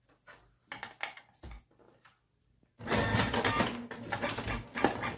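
Canon inkjet printer at work: a few soft clicks and paper rustles, then, nearly three seconds in, a sudden louder continuous mechanical run as the printer prints and feeds paper.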